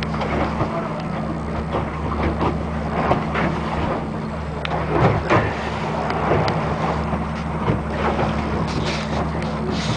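Fishing boat's engine running steadily under way at trolling speed, with water rushing along the hull, wind, and scattered knocks and splashes.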